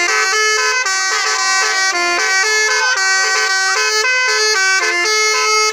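Bus 'telolet basuri' musical air horn playing a quick melody, a run of short and held horn notes stepping up and down in pitch several times a second.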